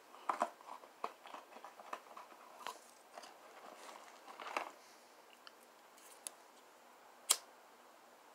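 Scattered small clicks and rustles close to the microphone, busiest in the first few seconds, with one sharp click about seven seconds in.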